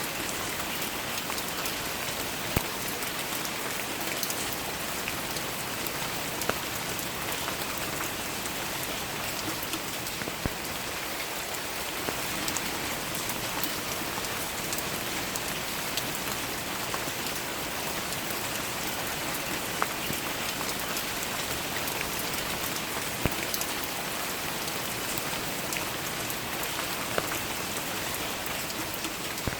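Steady rainfall, an even hiss of many drops, with a few louder single drops ticking sharply now and then.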